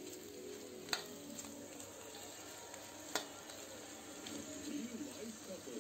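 Pork pieces sizzling as they fry in a stainless steel wok while a metal ladle stirs them, with two sharp clinks of the ladle against the wok, about a second in and again just after three seconds.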